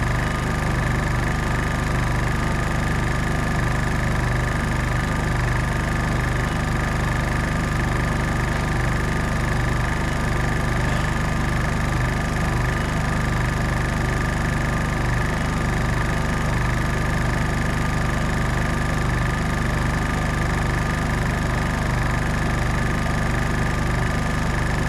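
Honda EU3000i inverter generator running at a steady speed, its engine freshly rebuilt with a honed cylinder and new rings after losing compression.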